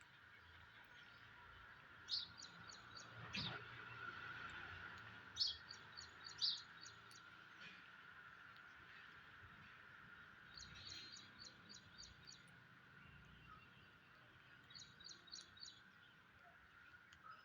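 Faint bird chirps in short quick runs of about half a dozen notes, heard four times, over a steady high hum.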